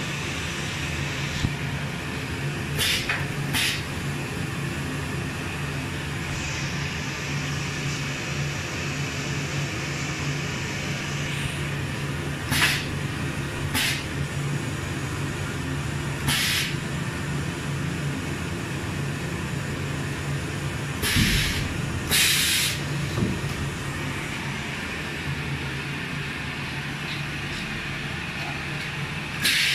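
High-frequency PVC welding machine running with a steady low hum, broken by several short hisses of compressed air, mostly in pairs, as its pneumatic cylinders press the welding die down and let it up again.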